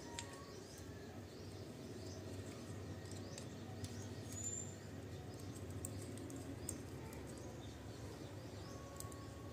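Faint birds chirping over low steady background noise, with a few light clicks from a screwdriver working the terminal screws of a three-pin plug.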